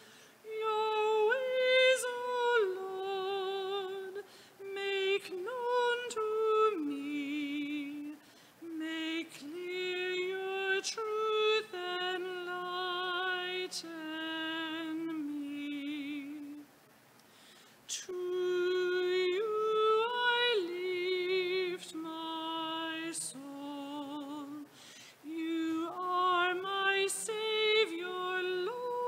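A woman's solo voice singing a slow hymn in held notes with vibrato, the melody stepping up and down, with a brief pause about two-thirds of the way through.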